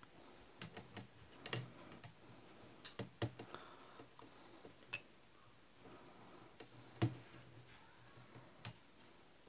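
Faint, scattered small clicks and taps of metal and plastic parts as the float and its hinge pin are fitted into a Honda Activa scooter carburetor by hand, with the sharpest click about seven seconds in.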